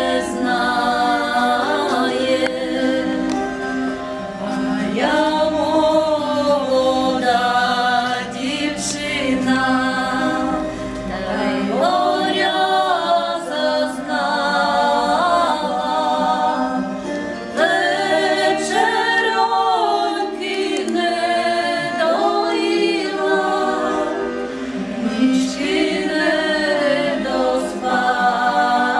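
Three women singing a Ukrainian song a cappella, several voices together in harmony, in long sustained phrases.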